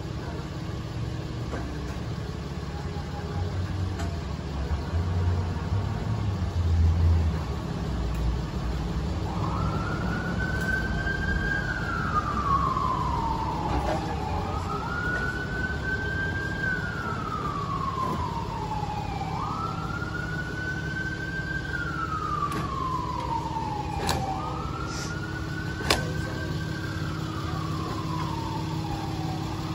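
An emergency vehicle's siren wailing, starting about nine seconds in: each cycle climbs quickly, then falls slowly, repeating about every five seconds. Under it, the steady low running of an idling engine, with two sharp knocks near the end.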